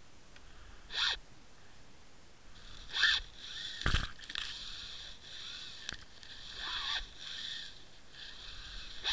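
Underwater scrapes and knocks picked up through the housing of a camera on a fishing line: short scraping rasps about a second in and again from three seconds on, with one heavier knock about four seconds in as something brushes across the camera.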